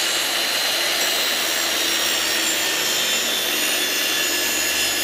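Handheld circular saw running under load, ripping a sheet of pre-finished plywood along a straightedge guide in one steady, unbroken cut.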